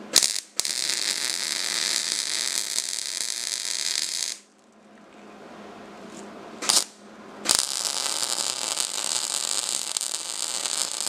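Electric arc welding: two runs of a steady sizzling hiss, the first stopping about four seconds in and the second starting again, after a couple of sharp clicks, a little past halfway.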